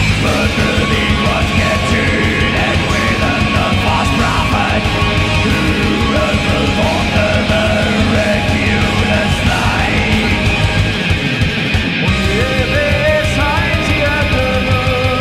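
Symphonic metal band playing live: distorted electric guitars, bass and a full drum kit. About three quarters of the way through, the low end drops out briefly, and then a melodic lead line comes in over the band.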